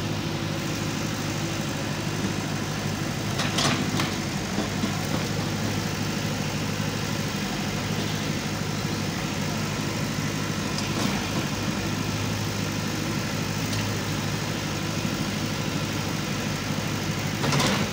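Backhoe loader's diesel engine idling steadily, with a few brief sharp sounds over it, the loudest about three and a half seconds in and near the end.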